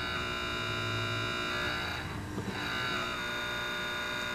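The contact points of a 1960s Delco Remy two-coil voltage regulator buzzing steadily. They are vibrating 60 times a second because the electric-train transformer feeding them does not filter out the household AC.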